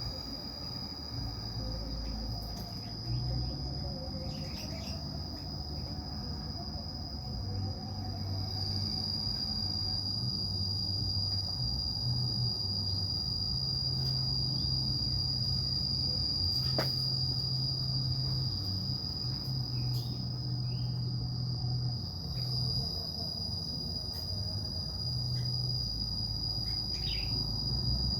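Insects trilling in one steady high-pitched tone, over a low hum that rises and falls.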